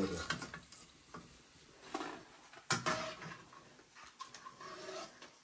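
Metal slotted spoon clinking and scraping against a steel kadai and bowl as fried bhajias are lifted out of the oil, with one sharper clink near the middle.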